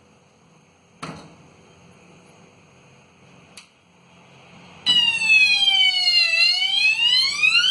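Two short sharp clicks, then about five seconds in a small 9-volt battery-powered electronic alarm siren sounds loudly, its tone gliding down for about a second and a half and then rising again. The siren is set off by the door switch as the door opens.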